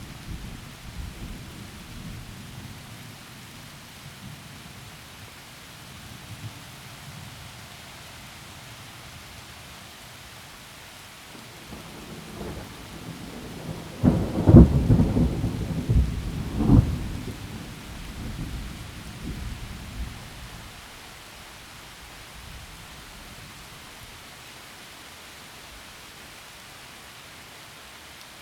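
Heavy rain falling steadily in a forest during a thunderstorm, with low rolling thunder at first. About halfway through, a loud peal of thunder builds, cracks sharply several times, then rumbles away over a few seconds.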